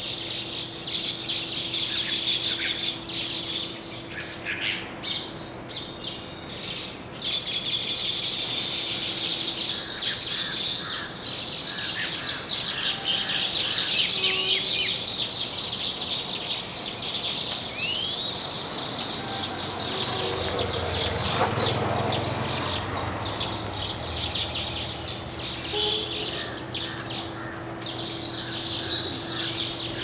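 Baya weavers chattering and chirping continuously in a dense, rapid high-pitched twitter, with a short rising whistle partway through.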